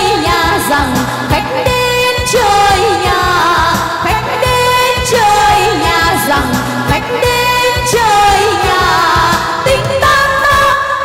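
Two female singers singing a Vietnamese song into microphones over amplified instrumental accompaniment, with long held notes that waver and slide between pitches.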